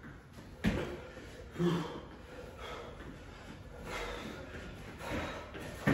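Thumps of hands and feet landing on a rubber gym mat during a one-pump burpee and jogging in place, with heavy breathing; the clearest thumps come about two-thirds of a second in, about a second and a half later, and at the very end.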